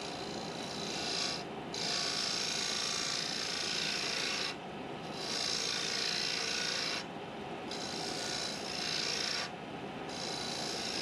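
Turning tool cutting a spinning wood blank on a lathe: a steady hiss of shavings coming off, broken by four short pauses where the tool eases off the wood.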